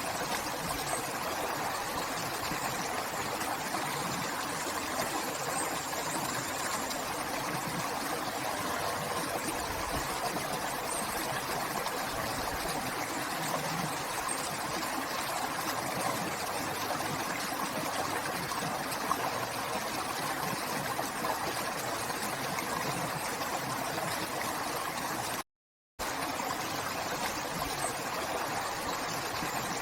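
Steady rushing and trickling of a flowing river, broken by a brief dropout to complete silence about 25 seconds in.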